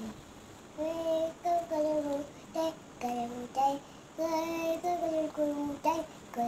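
A small child singing a simple wordless tune to herself: a string of short held notes that step up and down, starting about a second in.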